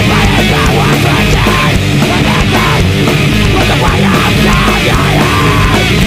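Loud screamo/hardcore punk recording: distorted electric guitars and busy drums playing.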